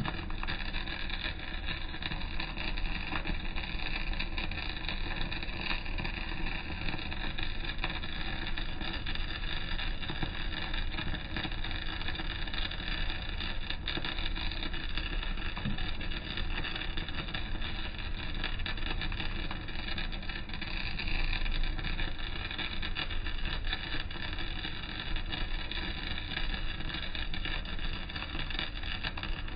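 Electric arc welding a vertical-down (3G downhill) seam on steel plate: the arc runs continuously with a steady crackling sizzle, over a low steady drone.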